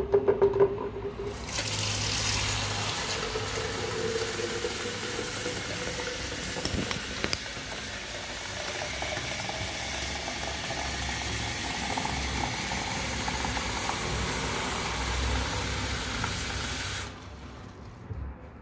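Bathroom sink tap running into a plastic jug: turned on about a second in, a steady gush of water with a note that rises as the jug fills, then shut off abruptly near the end.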